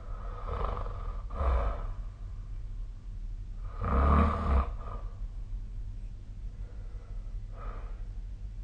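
A sleeping person snoring: several separate snores, the loudest about four seconds in and a weaker one near the end, over a steady low hum.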